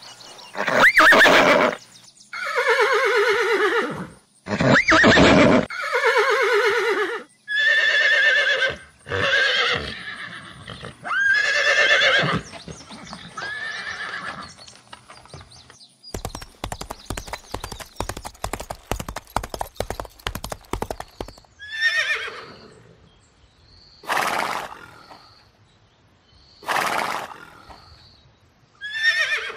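Horses whinnying and neighing in a run of loud calls, each with a wavering, falling pitch. About halfway through comes some five seconds of rapid hoofbeats, then a few shorter calls.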